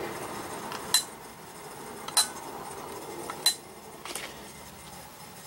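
Three sharp metallic clicks, each with a brief ringing note, evenly spaced about a second and a quarter apart, over a low steady background hum.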